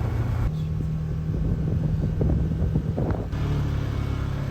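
A vehicle engine running steadily with a low hum, its pitch stepping abruptly twice, with some wind noise on top.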